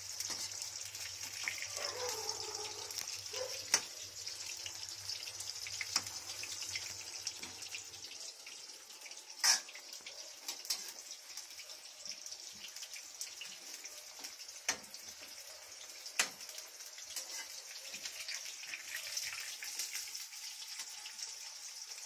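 Eggplant slices deep-frying in hot oil in a steel kadai: a steady high sizzle with scattered clicks and clinks of a ladle against the pan, the loudest about nine seconds in.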